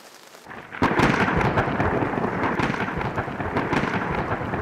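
Thunderstorm: a light hiss of rain, then about a second in a sudden loud clap of thunder that goes on rumbling under steady rain.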